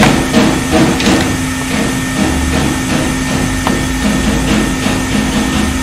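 Irregular knocks and clicks of hand tools working on a power supply circuit board, over a steady low hum.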